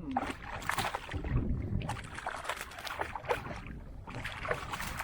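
Irregular splashing, knocking and rustling aboard a small inflatable fishing boat as a small snapper is brought in and handled.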